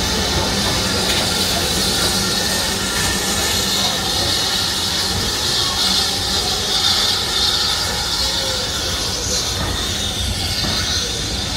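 BR Standard Class 4 steam tank locomotive pulling out of a station with its coaches: a steady hiss of steam over the rumble of the train rolling past on the rails.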